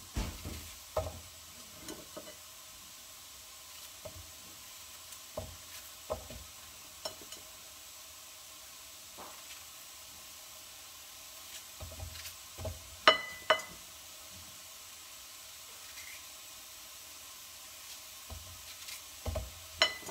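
Apple pieces cooking down in a pan over a low gas flame, a soft steady sizzle, with scattered small knocks as freshly cut pieces drop in. A few ringing metal clinks, the loudest about 13 seconds in and again near the end.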